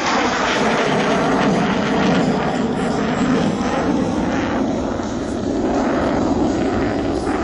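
F-104 Starfighter's J79 turbojet roaring steadily as the jet flies past, its pitch falling near the start as it goes by.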